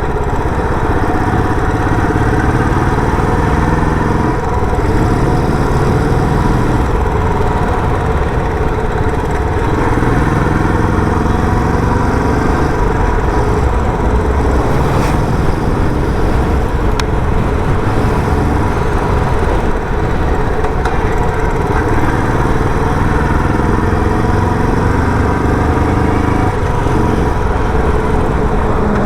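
Royal Enfield Bullet 350's single-cylinder engine running through its stock silencer while the bike is ridden, its pitch rising again and again as it accelerates and falling back between the rises.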